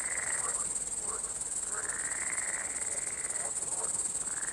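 Cartoon grasshopper chirring: a steady high trill runs under repeated scraping phrases, each about a second and a half long.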